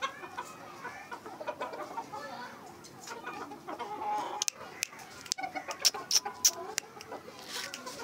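Aseel chickens clucking in short repeated calls, with a run of sharp clicks in the middle.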